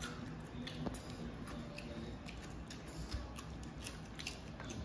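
Close-up eating sounds from people eating noodles and curry by hand: wet chewing and lip smacks, with scattered short clicks. Near the end there is a bite into a raw cucumber slice.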